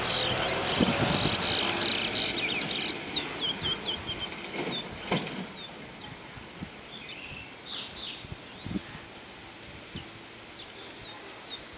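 Caged songbird singing: a run of quick, high, down-slurred chirps in the first half, then a few scattered chirps, over a steady background noise that fades about halfway.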